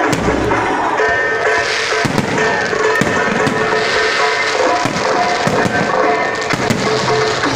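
Fireworks bursting and crackling in quick succession, with deep booms near the start and at the end, over loud music.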